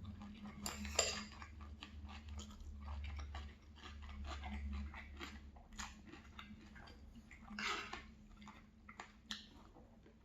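Cutlery clicking and scraping against a plate, with chewing, in a string of irregular short taps; the loudest clinks come about a second in and again near eight seconds.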